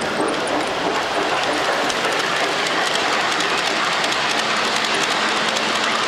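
G-scale model freight train of tank cars and flatcars rolling past close by, a steady rolling rumble of many wheels on the track with light clicking.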